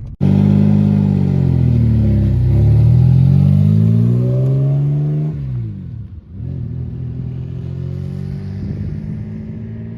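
Turbocharged Mazda MX-6 engine running hard under load for about five seconds. The throttle then closes and the engine note falls away sharply before settling into a steadier, quieter run.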